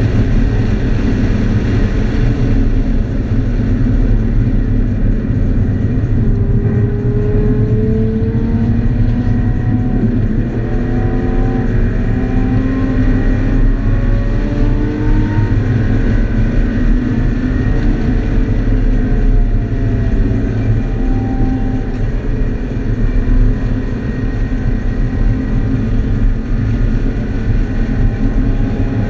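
2013 Scion FR-S's 2.0-litre flat-four engine running hard on a race track, heard from inside the cabin under heavy road and wind noise. Its pitch rises and falls several times with throttle and gear changes.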